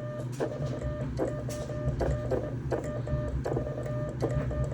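Morse code sent by hand on a semi-automatic 'bug' key. The radio's sidetone beeps dits and dahs at one steady mid pitch, and the key's contacts click along with it.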